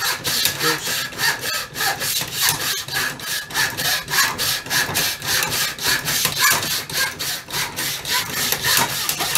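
Hand saw cutting through the wooden buttstock of a Mossberg 500 shotgun to shorten its length of pull, in steady, even back-and-forth strokes, several a second.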